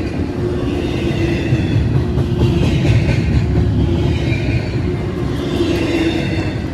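Cars of a Norfolk Southern intermodal container freight train rolling past at the crossing, a steady loud rumble with a constant hum. A higher wheel screech swells and fades every second or two.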